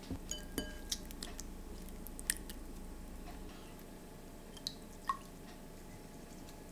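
Sparse light clicks and taps as sliced spring onion is dropped onto a bowl of noodles, beef and vegetables. One tap about half a second in rings briefly, and the sharpest clicks come about two and five seconds in.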